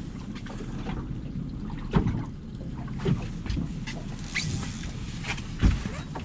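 Steady low rumble aboard a small fishing boat, broken by a few sharp knocks, the loudest about two seconds in and another near the end.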